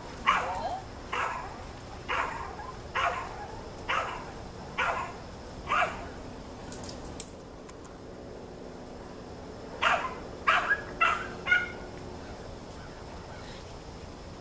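A dog barking: single barks about once a second for six seconds, then a quick run of four barks after a pause.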